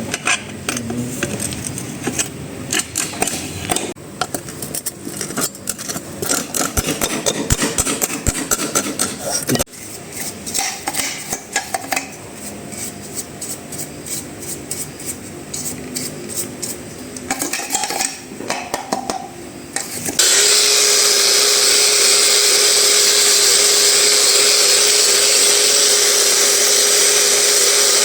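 Tools and metal parts clinking and tapping irregularly as generator parts are worked on by hand; about twenty seconds in, a small electric power tool starts and runs steadily at a constant pitch.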